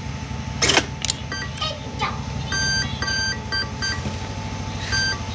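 Electronic startup beeps from the RC jet's power electronics as the flight batteries are connected: a sharp click about a second in, then a run of short beeps followed by several longer beeps. A steady low rumble runs underneath.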